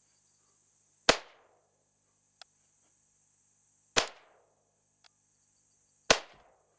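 AR-15 rifle with a .223 Wylde barrel firing 55-grain XM193 full metal jacket rounds: three single shots about two to three seconds apart, each a sharp crack with a short trailing ring, slow aimed fire for a five-shot group. A steady high drone sits underneath.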